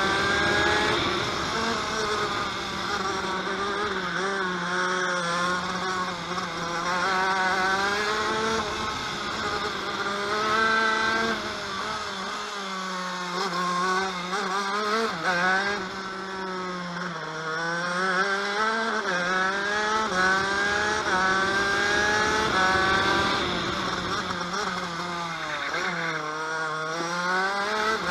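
TM KV92 125cc two-stroke shifter kart engine at racing revs, heard onboard: its pitch climbs again and again as it pulls through the gears, then drops back off-throttle a few times, most deeply three times.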